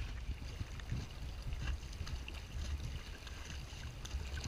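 Wind buffeting the camera microphone in a steady low rumble, with water swishing and lapping along the hull of a small sailing dinghy under way.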